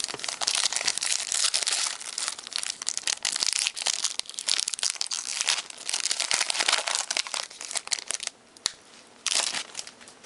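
A trading-card pack's wrapper being torn open by hand, with dense crinkling and tearing that eases off about eight seconds in. A short burst of crinkling comes near the end.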